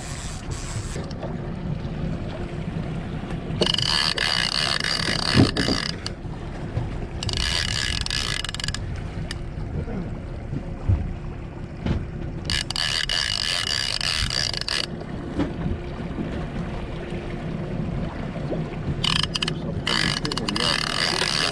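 A conventional trolling reel's clicker ratcheting in four spells of a couple of seconds each, over the steady hum of an outboard motor pushing the boat at trolling speed, with some wind on the microphone.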